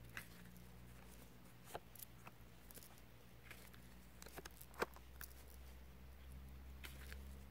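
Near silence with a few faint, scattered clicks and taps of playing cards being handled and laid down, the loudest a little before five seconds in.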